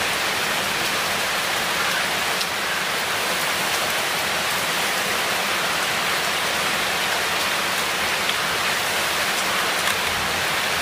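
Steady heavy rain: an even, unbroken hiss of downpour.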